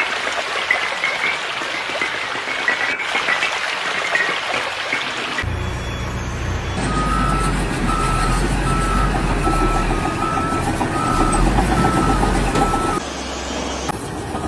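A heavy vehicle's engine rumbling, with a reversing alarm beeping evenly at a little under two beeps a second. It follows a stretch of hissing machine noise that cuts off about five seconds in.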